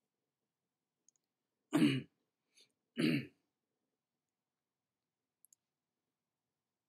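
A person coughing twice, about a second apart.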